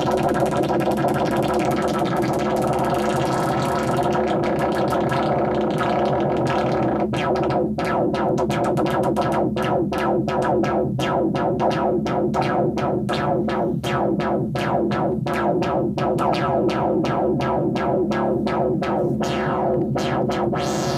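Make Noise modular synthesizer patch playing a dense, distorted drone. From about four seconds in it is chopped into a fast, even pulse of a few beats a second, and near the end a rising sweep climbs through it.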